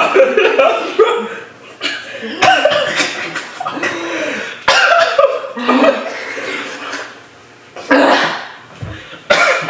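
A woman coughing and crying out in distress in several sudden fits, from the burning heat of a chip made with Carolina Reaper and Trinidad Scorpion peppers.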